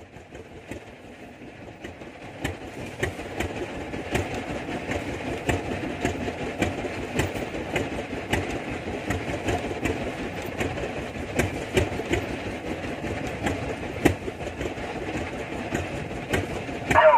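Small fishing boat's engine running with a steady, rhythmic clatter over the rush of water along the hull, growing louder over the first few seconds.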